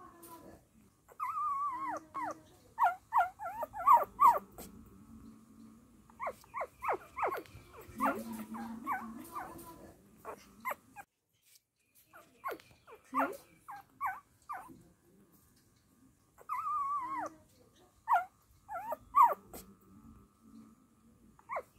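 Young dachshund puppies squeaking and whimpering: bouts of short, high cries that swoop up and down in pitch, broken by short quiet gaps.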